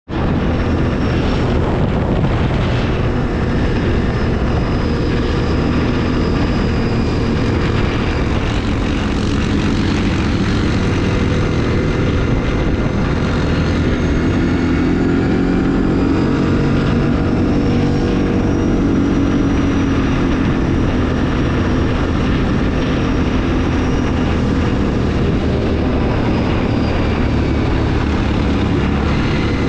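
ATV engine running under load, a steady drone whose pitch rises and falls gently with the throttle.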